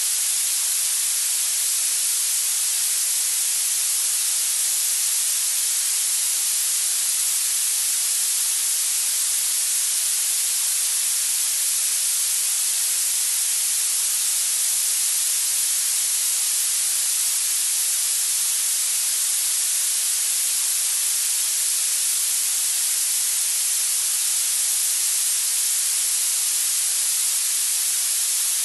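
Steady, unchanging hiss of generated noise, strongest in the high treble: a tinnitus retraining sound meant to suppress and habituate tinnitus.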